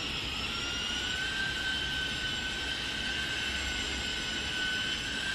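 A steady mechanical whine over a hiss, its pitch drifting slightly up and down.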